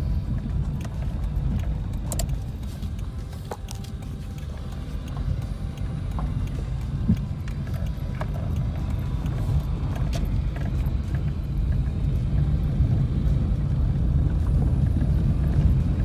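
Car cabin noise while driving slowly on a rough dirt road: a steady low rumble from the engine and tyres, with a few faint clicks and knocks from bumps along the way.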